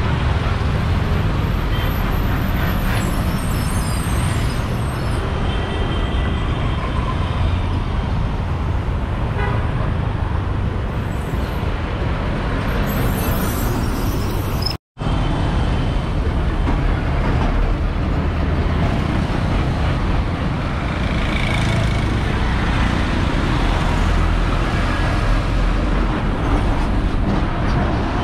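Busy street traffic: buses, auto-rickshaws and motorbikes running past with a steady engine rumble, and a few short horn toots. The sound cuts out for a split second about halfway through.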